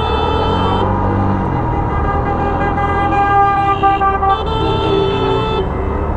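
Several car horns sounding together in long, held, overlapping blasts, some cutting in and out while others carry on.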